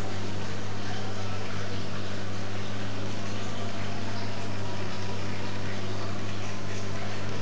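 Aquarium pump humming steadily, with a constant hiss of moving water.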